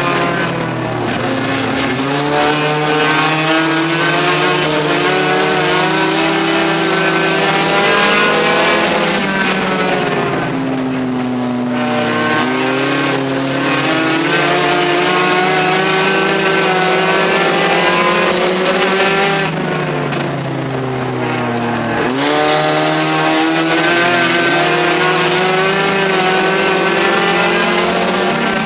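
Compact stock car's engine heard from inside the car during a race, pulling hard with a steadily rising pitch, then dropping sharply about every ten seconds as the driver lifts for the turns before climbing again.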